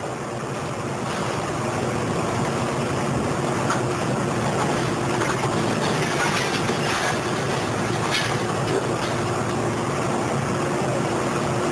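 Wheeled scrap-handling excavator with a multi-tine grapple at work: its diesel engine and hydraulics run steadily with a constant tone. A few sharp metal clanks come through the middle.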